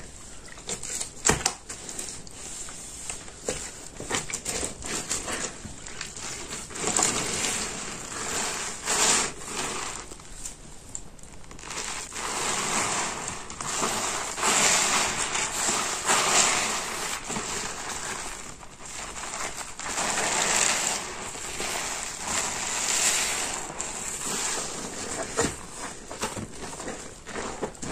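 A large porous car sponge soaked in soapy water, squeezed and pressed by hand. It makes wet, crackling squelches that come in repeated surges, with scattered clicks in the first few seconds.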